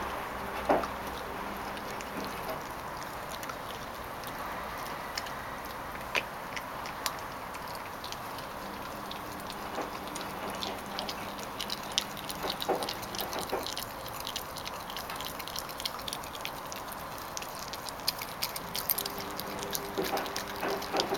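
Puppy chewing a raw chicken leg, the bone crunching and cracking in short, irregular clicks that come far more often in the second half.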